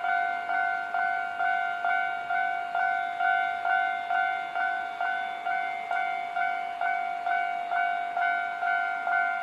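Japanese railway level-crossing warning bell ringing, a two-tone electronic ding struck about twice a second, each strike fading before the next. It signals that a train is approaching and the crossing is closed.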